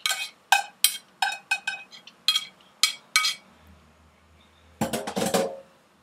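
Kitchen knife knocking against a plastic cutting board while spring onions are prepared: a run of sharp knocks, two or three a second, then a short pause and a brief jumble of clatter near the end.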